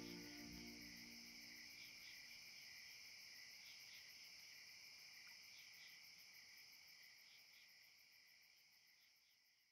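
The last notes of the song's music die away in the first second or two, leaving a faint, steady chorus of crickets chirring, which fades out near the end.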